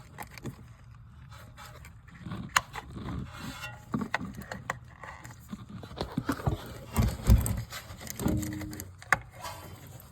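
Irregular clicks, knocks and scrapes of hands and parts being handled on the car's rear brake, with a few heavier thumps about two-thirds of the way through and a brief squeak near the end.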